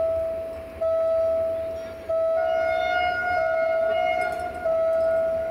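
Level crossing warning bell ringing, one sharp ring about every second and a quarter, each ring fading away. A second, slightly higher steady tone sounds over it for about two seconds in the middle.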